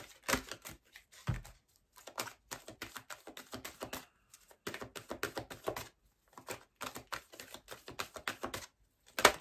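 A deck of oracle cards being shuffled by hand: irregular runs of quick papery clicks and flicks. A sharper, louder snap comes near the end as a card shoots out of the deck.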